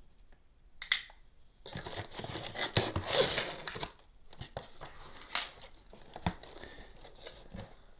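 Packaging being handled and crinkled while items are taken out of a box: a short rustle about a second in, then a dense spell of crinkling, loudest around the third second, thinning to scattered clicks and rustles.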